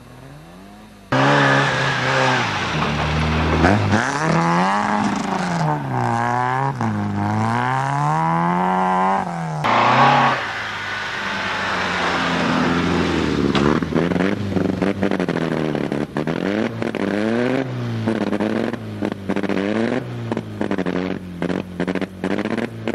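Rally car engines revving hard on snow, the pitch rising and falling again and again with throttle and gear changes; the sound starts suddenly about a second in. In the last few seconds the engine comes in short, choppy stabs of throttle as a car sits stuck in a snowbank.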